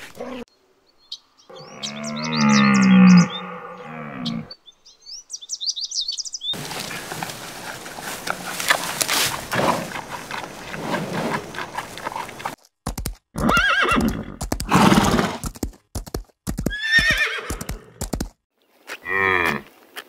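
A string of separate animal sounds cut one after another: a drawn-out pitched call, then short high chirps, then several seconds of rough noise with clicks, then a run of short pitched calls broken by silences.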